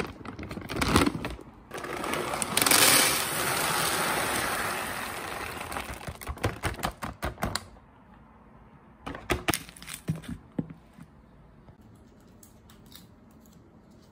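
Dry cat kibble poured from a plastic food bag into a plastic storage bin: crinkling of the bag, then a few seconds of steady pouring rattle, tailing off into scattered clicks and rustles after about seven seconds.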